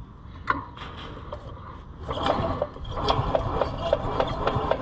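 The stiff two-stroke engine of a 1980 Harley-Davidson golf cart, being freed up with oil, gives a few scrapes and clicks as it is worked by hand. About two seconds in it starts being cranked over, turning with a steady rhythmic beat about five times a second, with its spark plug out.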